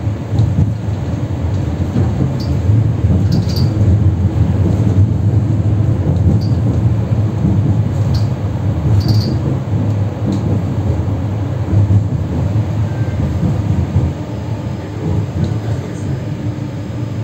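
Tram running along the street, heard from inside the car: a steady low rumble of wheels on rails and running gear. A few short high squeaks come through in the first half and again near the end.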